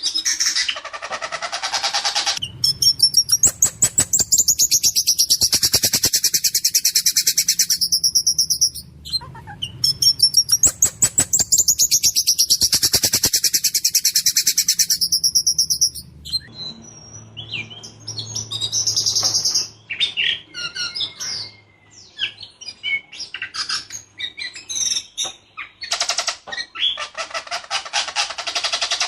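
Whistling thrush (ciung batu) singing loudly: long, rapid rolls of harsh, high repeated notes, twice, then a stretch of shorter varied calls and whistles, and another fast roll near the end.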